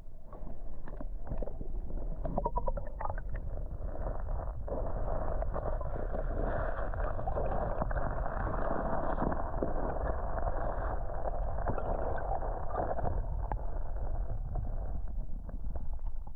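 Creek water running steadily close to the microphone, over a low rumble, with a few light clicks in the first three seconds.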